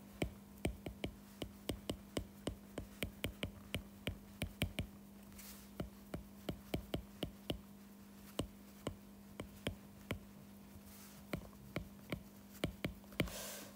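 Stylus tip clicking and tapping on a tablet's glass screen during handwriting: irregular sharp clicks, about two or three a second, pausing twice, over a faint steady hum.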